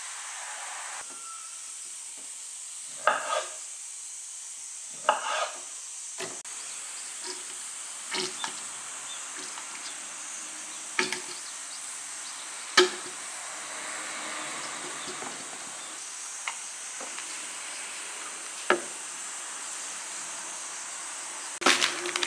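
Kitchen utensils knocking and clinking against cookware every couple of seconds over a steady hiss.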